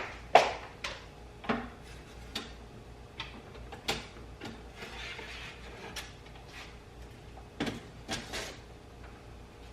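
Irregular clinks and knocks of a utensil against a frying pan as French toast is turned, the toast sticking to the pan.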